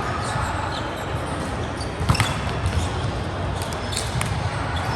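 Volleyball in play: a string of sharp ball hits and bounces, the loudest pair about two seconds in, over steady background noise.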